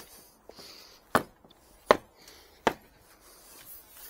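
Three sharp knocks about three-quarters of a second apart, as a rusty steel bar is struck down against the concrete paving slab.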